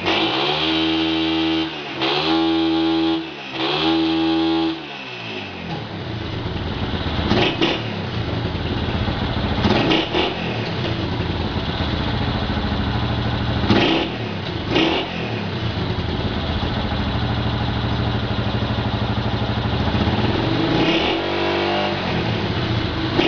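Single-cylinder Honda CG 125 motorcycle engine with an aftermarket Roncar crackle exhaust, revved and held three times in the first few seconds, then running with a few sharp cracks from the exhaust and another rev near the end.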